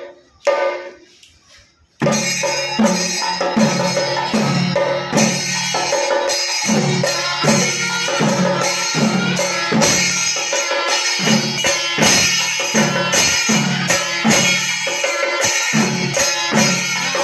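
Kerala chenda melam: an ensemble of chenda drums beaten with sticks, with cymbals, kicks in about two seconds in and plays a steady, evenly repeating rhythm.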